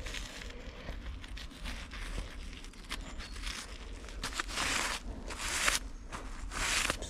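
Scratchy rustling and crunching of loose soil under a gloved hand, in a few short spells, the longest about four and a half to six seconds in and another near the end, with small clicks between.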